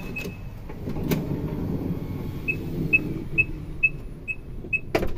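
Nissan Serena C26 power sliding door being pushed along its track by hand: a click about a second in, then a rumbling roll, with six short high beeps about half a second apart, and a loud knock near the end.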